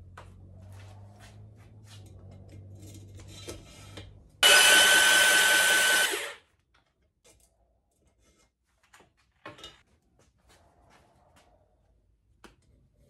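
Electric drill spinning a stone cylinder hone in a Mercury outboard cylinder bore: a loud steady whine with grinding that starts sharply about four and a half seconds in and cuts off after a second and a half. Before it a low steady hum, and after it a few faint clicks.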